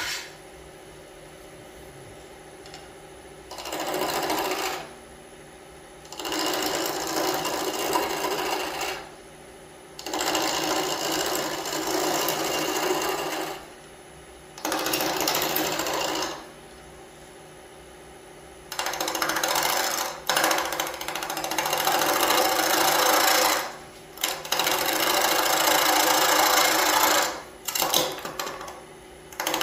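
Wood lathe spinning an off-center Nargusta-wood scoop blank while a gouge makes repeated interrupted cuts on the offset handle: loud cutting passes of a few seconds each, with short pauses between, over the steady hum of the lathe.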